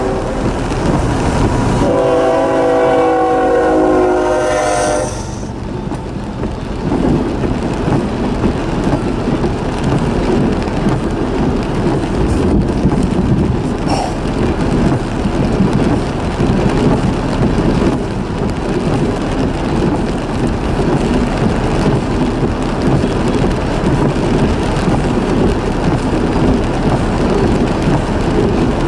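Freight train locomotive air horn sounding its several-note chord, cutting off just after the start and blowing again for about three seconds. It is followed by the steady rumble and rattle of the train rolling past.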